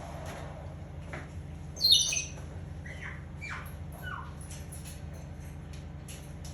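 African grey parrot giving one loud, harsh, high squawk about two seconds in, followed by a few short falling whistles and light clicks.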